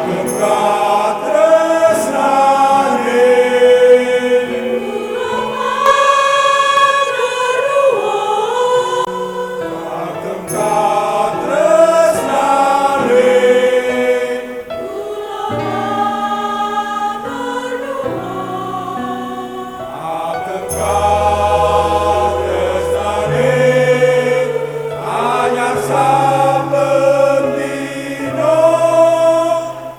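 Church choir singing a hymn in several-part harmony, voices moving together on held notes.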